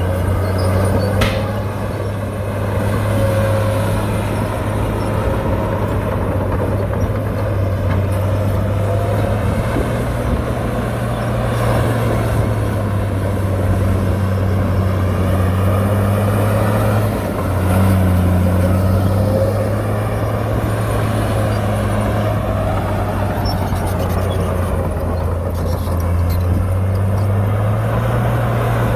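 Heavy earthmoving machinery's diesel engine running steadily under load. Its low note shifts in pitch a few times, with a sharp change about 17 seconds in.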